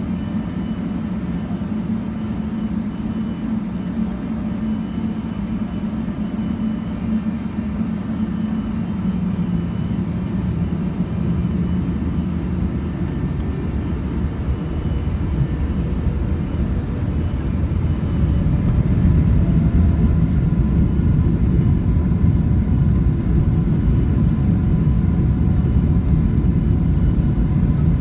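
Airliner jet engines giving a steady low rumble that gets louder about two-thirds of the way through, as for a takeoff.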